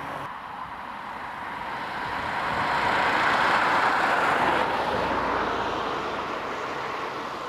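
A road vehicle passing close by on a wet lane: tyre hiss and engine swell to a peak about three to four seconds in, then fade away.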